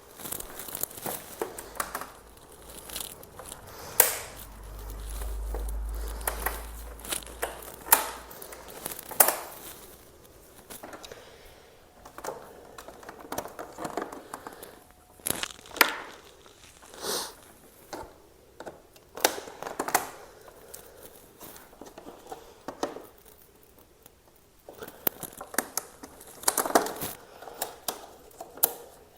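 Plastic motorcycle fairing panels being unclipped and pulled off by hand, with zip ties being cut: irregular sharp clicks and snaps with crinkling plastic. A low rumble runs for a few seconds about four seconds in.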